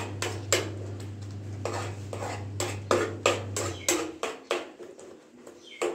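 A spoon scrapes and knocks against a steel pot while stirring a thick rice-flour paste as it cooks, about two or three strokes a second.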